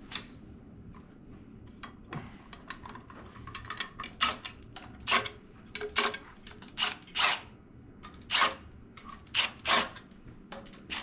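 Short sharp metallic clacks and clinks of tools and bolts on a bare LS1 V8 engine block, roughly one a second and starting a few seconds in, as parts are fitted to the front of the block.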